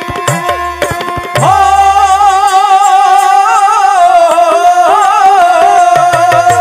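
Indian-style background music. Tabla drumming with low, bending bass strokes comes first. About a second and a half in, a loud, held melody line with vibrato enters over it.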